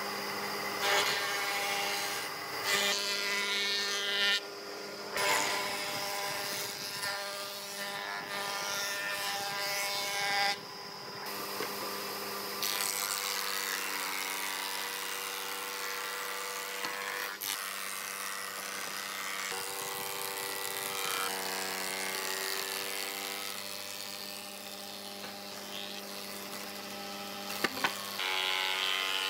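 Woodworking jointer and thickness planer running, their cutter heads planing boards: a steady machine whine with the hiss of cutting, changing abruptly several times, with two sharp ticks near the end.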